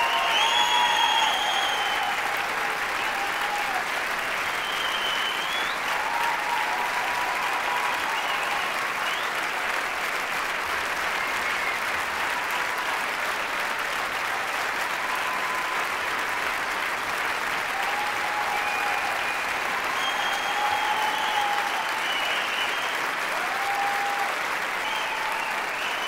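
Large audience applauding steadily, with scattered cheers on top.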